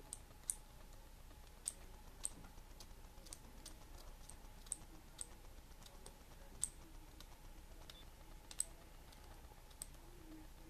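Light, irregular clicks and scratches of a knife blade scraping the metal legs of a fader potentiometer down to bare metal so that solder will take to them.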